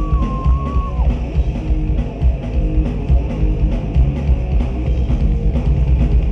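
Heavy metal band playing live: distorted electric guitars, bass and drum kit. A held high note in the first second drops away sharply about a second in.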